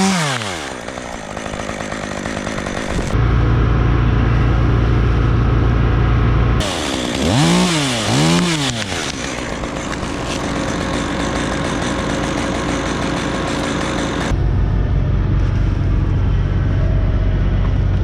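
Chainsaw running: the throttle is let off at the start, so the engine note drops, then it is blipped twice about halfway through. In two long stretches a steady low rumble dominates.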